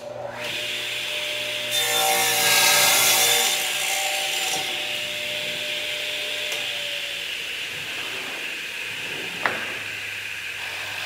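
Radial arm saw running. Its blade crosscuts a wooden board, the loudest part, from about two seconds in for about a second and a half. The motor then runs on steadily, with one sharp click near the end.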